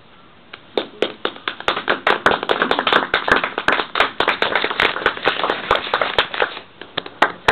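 Audience applause: a few claps about half a second in, quickly thickening into dense clapping, then thinning to scattered claps near the end.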